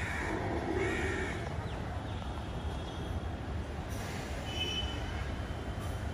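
Outdoor ambience with a steady low rumble, a short bird call about a second in, and a thin high call near the end.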